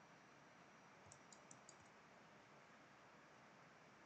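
Near silence: faint room hiss, with a quick run of four or five faint clicks about a second in from working a computer's mouse and keys.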